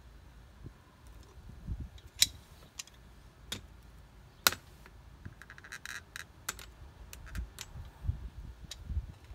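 Tongue-and-groove pliers clicking against the metal and plastic pipe-union fittings of a backflow preventer as the unions are tightened: scattered sharp clicks, the loudest about two and four and a half seconds in, and a quick run of small ticks around six seconds, with a few dull low thumps of handling.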